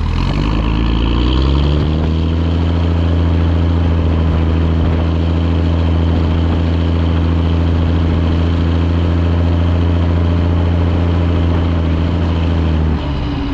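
Fendt 512C tractor's diesel engine running close to the microphone. The revs dip and climb back up in the first second or two, hold steady, then fall away near the end.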